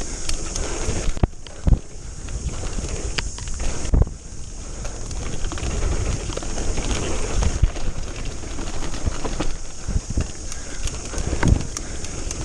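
Mountain bike descending a rough dirt trail at race speed: tyres rumbling over dirt, the bike clattering over bumps, and wind on the microphone. Sharp knocks stand out about a second and a half in and again about four seconds in.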